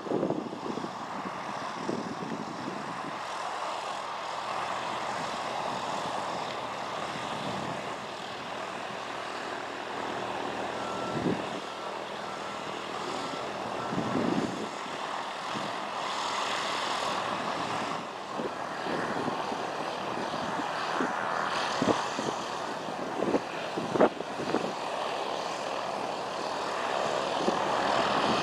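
The single-engine propeller plane's four-cylinder Lycoming engine and propeller run steadily at low power, with a few dull thumps along the way.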